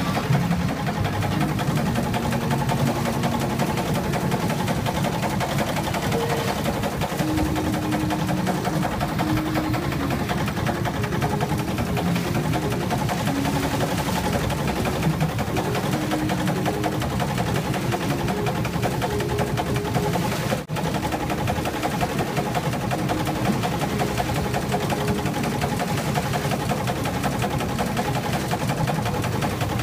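A boat's engine running steadily with a fast, even mechanical clatter, broken by a brief drop in sound about two-thirds of the way through.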